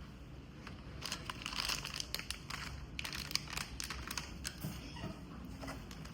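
Irregular rustling and crinkling with many sharp clicks, busiest between about one and five seconds in, as of things being handled.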